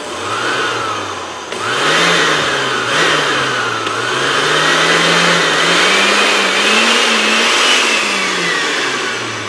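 Oster blender motor base running empty after its worn drive stud was replaced and its stuck brushes freed. The motor whine jumps up and dips as the speed buttons are pressed, climbs highest late on, then winds down and stops near the end.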